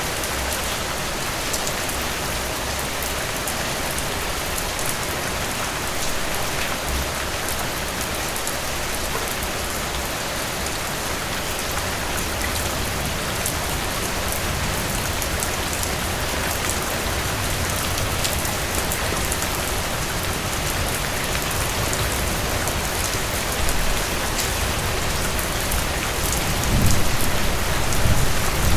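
Heavy rain pouring steadily, a dense hiss of drops spattering on surfaces. A low rumble swells near the end, like distant thunder.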